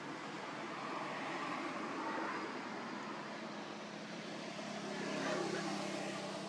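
Distant engine noise: a steady rushing hum that swells and fades twice, with a low drone coming in partway through.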